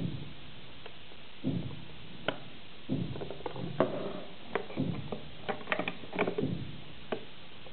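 Handling noise from an iPod touch being shaken and held in the hand: irregular knocks and clicks scattered over several seconds.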